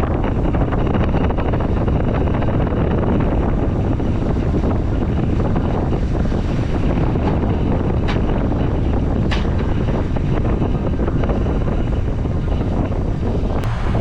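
Heavy wind buffeting the microphone on a fishing boat under way in rough seas, over the steady rumble of the boat's engine and hull. A few brief sharp ticks come through in the second half.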